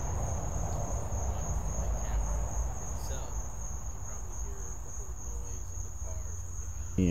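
Ambience picked up by a camera-mounted directional mic: crickets trilling steadily on one high note over a low background rumble.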